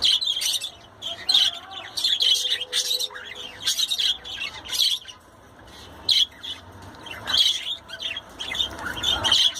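Budgerigar chirping: a rapid run of short, high chirps and squawky notes, with a brief pause about halfway through.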